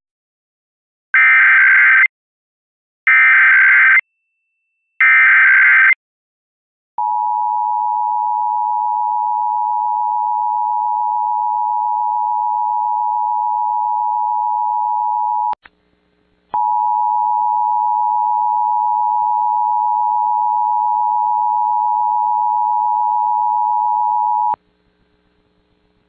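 Emergency Alert System test: three one-second bursts of the digital SAME header, then the two-tone attention signal (853 and 960 Hz together) held steady for about eight seconds. It breaks off with a click for about a second, then the two-tone sounds again for about eight more seconds.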